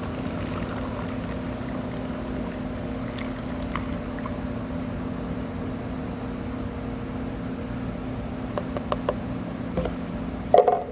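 Tannic acid solution being poured into a sprayer, a steady stream of liquid filling the container over a low steady hum. A few clicks and knocks come near the end, the loudest just before it finishes.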